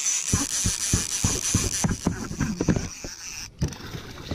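Irregular low thumps and knocks of a rod and baitcasting reel being worked while fighting a big hooked fish, over a steady high hiss that fades about two seconds in. Near the end, after a break, there is softer splashing as the fish thrashes at the surface.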